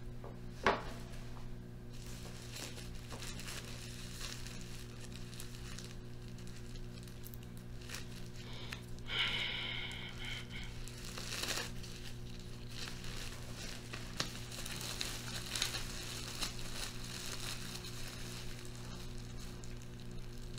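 Rustling and crinkling with scattered small clicks over a steady low hum, from bread being torn and handled at the table right after the blessing over bread. There is a sharp knock just under a second in.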